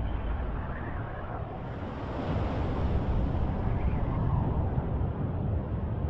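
Deep, steady rumbling of the Litli-Hrútur crater at Fagradalsfjall erupting as lava spatters and fountains, growing somewhat louder about two seconds in.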